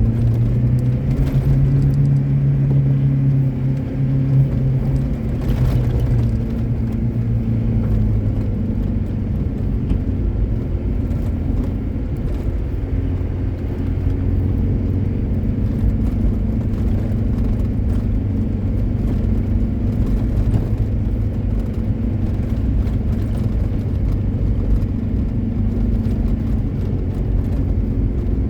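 A car engine runs steadily while the car is driving, over a low rumble. The engine note drops slightly in the first several seconds, then holds even.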